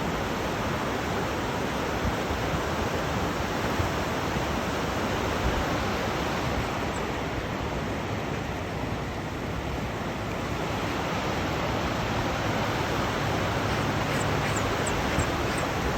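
River water rushing steadily, a continuous full noise with a few faint high chirps near the end.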